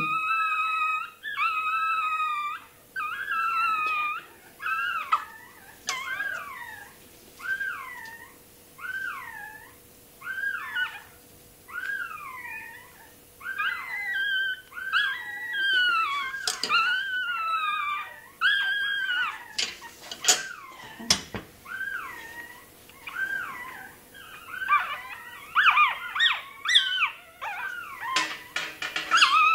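Russian Toy terrier puppy crying from tail docking: a long run of high-pitched squeals, about one a second, each bending up and down in pitch. Near the end the cries come faster and overlap, with a few sharp clicks.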